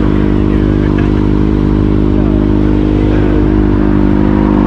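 A motorcycle engine idling steadily close by, an even, unchanging hum.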